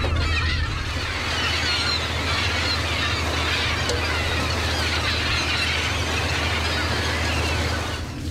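A large flock of gulls calling over one another, a dense squealing chatter, over the steady low drone of the fishing boat's engine. The gull calls die away near the end.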